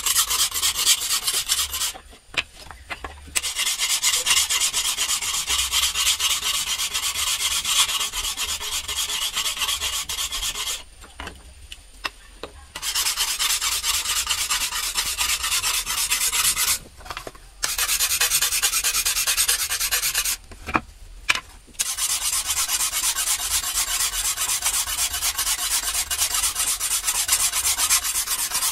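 Hand file rasping along the edge of a steel knife blade forged from a vehicle leaf spring, in quick continuous strokes that stop briefly four times.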